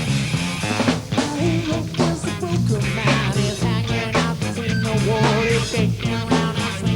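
Funk-rock band music: a repeating bass riff under regular drum hits, with a wavering lead line above.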